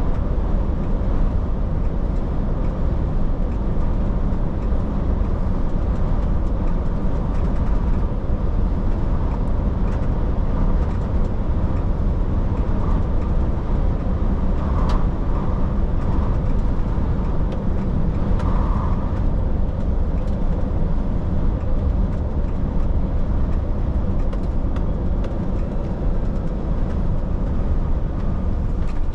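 Truck driving at a steady pace on the open road: a steady low rumble of engine and road noise, with a faint click about halfway through.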